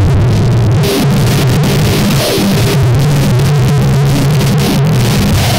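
Harsh noise music: a loud, dense wall of distorted electronic noise over a low droning hum, the high hiss flickering in and out in choppy stutters.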